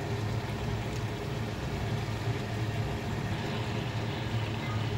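Steady low hum with a light hiss from mutton cooking in oil in a non-stick kadai on the stove.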